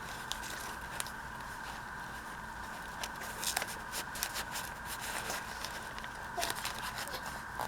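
Paper and card being handled and fitted into a handmade journal: scattered soft rustles and light taps, in small clusters, over a steady background hum.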